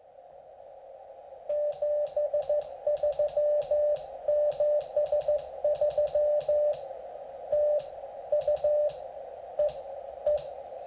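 Morse code (CW) signal heard through a ham radio receiver's narrow CW filter: a single tone keyed on and off in dots and dashes over a narrow band of hiss. The hiss fades up during the first second or so, the keying starts about a second and a half in and grows sparse near the end.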